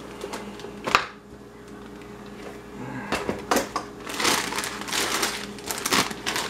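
Plastic packaging crinkling and rustling as it is handled, with one sharp knock about a second in and the crinkling growing busier from about halfway through.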